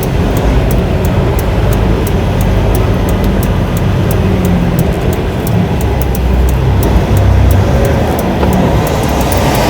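Semi truck's diesel engine running with a steady low rumble, with music playing over it that has a fast, regular ticking beat.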